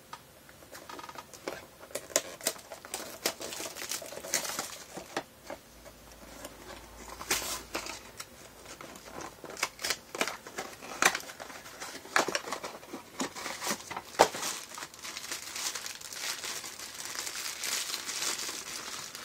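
A cardboard mystery blind box is opened by hand and the foil bag inside crinkled and torn: a run of sharp crackles and tearing, thickening into denser crinkling over the last few seconds.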